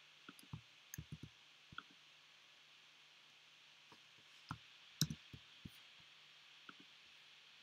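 Faint, scattered clicks of computer input, keystrokes and mouse clicks, over a low steady hum. The loudest click comes about five seconds in.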